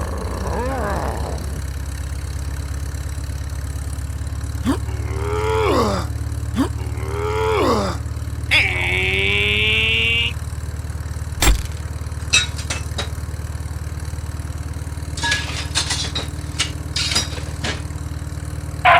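Steady low engine-like drone, over which several falling gliding tones sweep down and a held high buzz sounds for about two seconds. Sharp clicks come in the second half.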